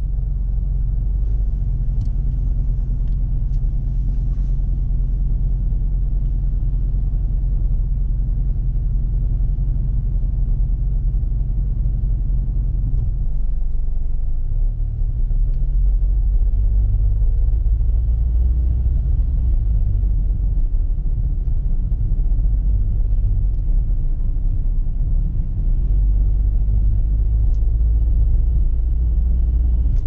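Low rumble of a car's engine and road noise heard from inside the car, steady while it waits in traffic, then louder from about halfway through as it drives off.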